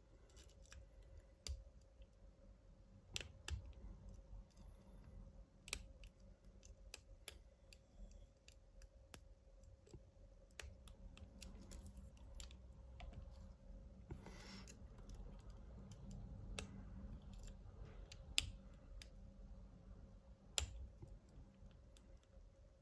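Faint, scattered clicks and ticks of a lock pick and tension wrench working inside a Master Lock 1921 pin-tumbler padlock with four spool pins, a few clicks louder than the rest. The pick is probing for the pin that is hung up, with the lock already in a false set.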